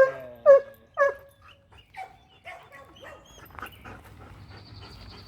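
Dog giving three short, high barks about half a second apart, then going quiet. The dog is frustrated at being tied up.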